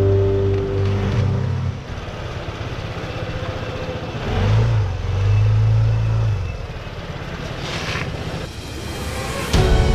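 Honda ADV 150 scooter's single-cylinder engine running at low speed, its low note swelling for a couple of seconds about halfway through.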